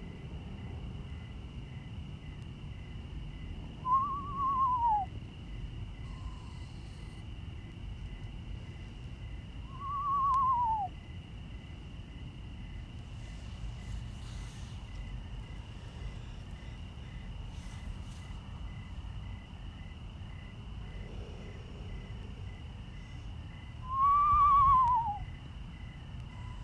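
Young screech owl giving a raspy screech that sounds like a rattle, three times, each about a second long, rising briefly and then falling in pitch.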